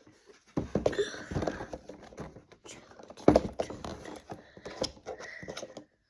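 Irregular handling noises of small objects: clicks, crackles and taps, with one louder knock a bit over three seconds in.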